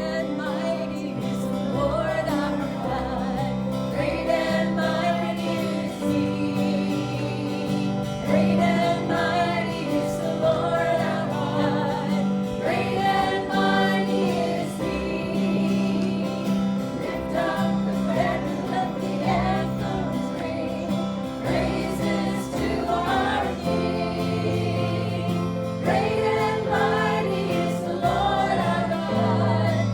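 A gospel song sung by a group of voices with instrumental accompaniment, the phrases rising and falling over a steady low backing.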